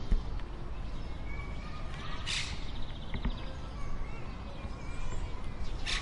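European serin singing: two short, high-pitched bursts of song about three and a half seconds apart, over a steady low background rumble.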